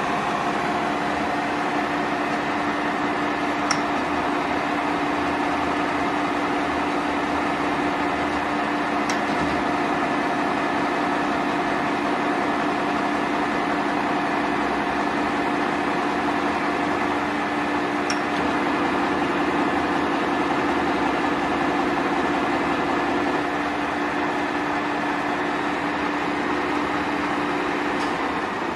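Bullard Cutmaster vertical turret lathe running under power, a steady mechanical hum and gear whine from its drive, slightly louder for a few seconds midway, with a few faint ticks.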